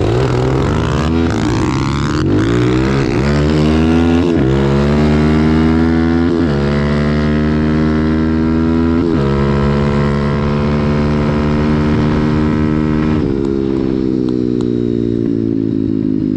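Single-cylinder pit bike engine under hard throttle, the revs climbing and dropping sharply at each of several upshifts. Near the end the revs fall slowly as the throttle eases off.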